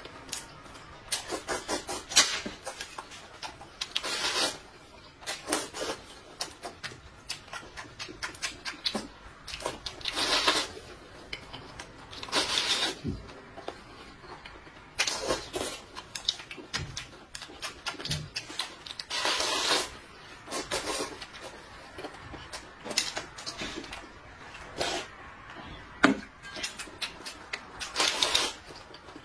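A man slurping noodles from a bowl in repeated short, noisy slurps every few seconds, with small clicks in between.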